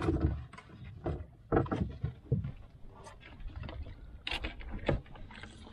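Irregular knocks and clatter of fishing gear being handled in a small wooden or fibreglass boat.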